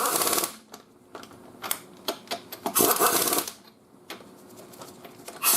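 Impact wrench on its lowest power setting, fired in short bursts of rapid hammering, each well under a second, to lightly snug lug nuts. One burst comes right at the start, another about three seconds in, and a third begins at the very end.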